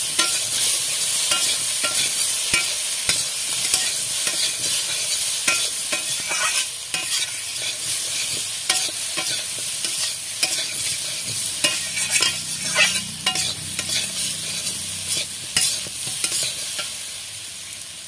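Diced taro and potato sizzling in hot oil in a metal kadai, stirred with a flat metal spatula that scrapes and taps against the pan again and again. The vegetables are being fried with salt and turmeric.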